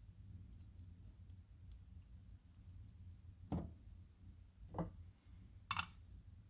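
Small metal lock parts clicking as a lock cylinder is being taken apart: three sharp clicks about a second apart, with a few faint ticks before them, over a low steady hum.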